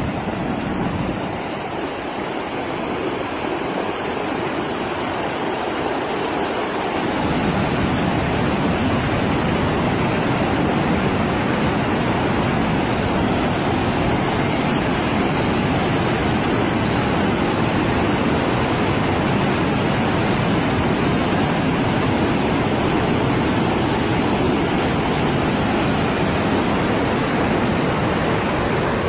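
Muddy flash-flood water rushing steadily. The sound grows louder and deeper about seven seconds in.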